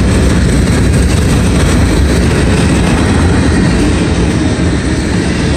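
Mixed manifest freight train's cars (covered hoppers, tank cars, a gondola) rolling past close by: a loud, steady rumble of steel wheels on rail.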